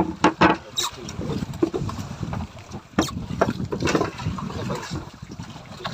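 Waves slapping against a small boat's hull: a low, uneven rumble of water broken by irregular knocks and splashes.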